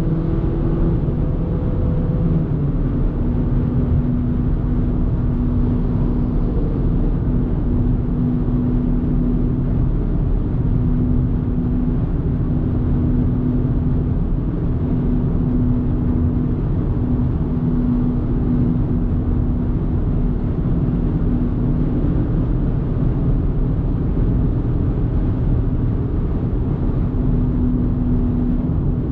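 Steady road and engine noise from a 2024 Audi A3 Sportback 1.5 TFSI, a turbocharged four-cylinder petrol, driving along. A low steady hum runs under the noise, after a brief shift in the engine note in the first couple of seconds.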